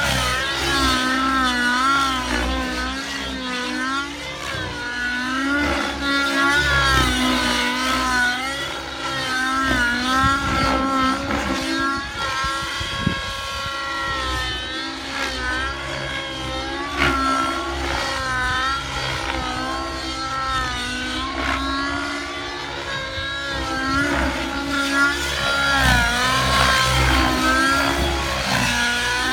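Synergy N7 radio-controlled helicopter flying aerobatics, its rotor and motor whine wavering up and down in pitch as it manoeuvres.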